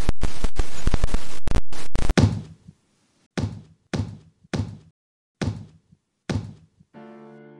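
Title-sequence sound effects: a dense rapid clatter for about two seconds that ends in a heavy thud, then five more single thuds spaced roughly half a second to a second apart, as title words stamp onto the screen. Soft piano music starts near the end.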